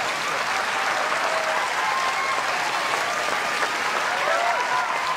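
Tennis crowd applauding the end of the match, steady clapping with a few voices calling out over it.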